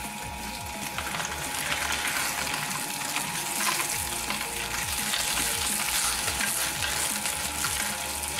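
Twin-shaft shredder's steel cutter discs crunching and tearing through a head of cabbage: a dense crackling over the machine's steady hum. The crunching grows louder about a second and a half in.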